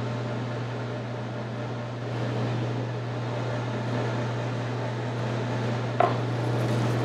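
Steady hum of kitchen ventilation under the soft sounds of a knife trimming silver skin from a beef tenderloin on a cutting board, with a single knock about six seconds in.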